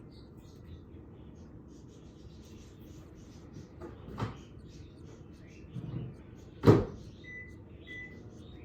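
A few knocks, like a lid or door being handled: a sharp knock about halfway, a duller bump, then a louder knock about two-thirds through, followed by two short faint high peeps near the end.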